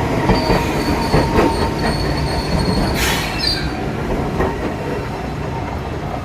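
Enoden electric train running past, wheels clacking over the rails with a thin high wheel squeal through the first half, and a short sharp hiss about three seconds in.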